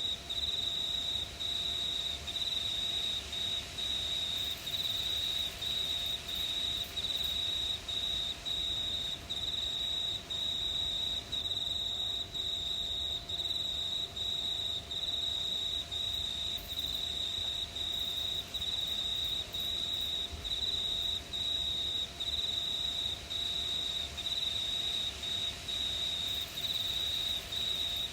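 Crickets chirping at night: a steady, high-pitched trill broken by short regular gaps about three times every two seconds.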